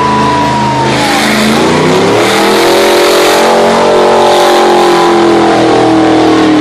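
Car engines revving hard as cars pull past doing burnouts. The engine pitch dips, climbs about two seconds in and holds high.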